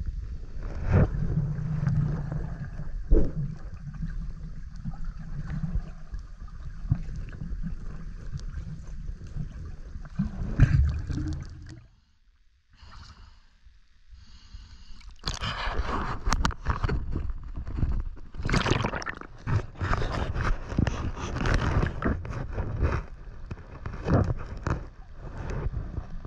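Water gurgling and rushing over an action camera held by a swimmer, with the churn of swim strokes. It drops almost to silence about twelve seconds in, then turns into choppy splashing and sloshing for the second half.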